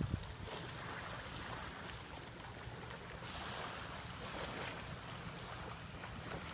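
Wind buffeting the microphone over small lagoon waves lapping at a sandy shore, with a steady low rumble underneath. A couple of handling knocks at the very start.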